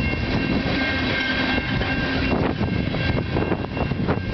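Loaded freight train of tank cars rolling past at speed: a steady rumble with quick clicks and clatter of the wheels over the rails, and a thin steady ringing tone through the first couple of seconds.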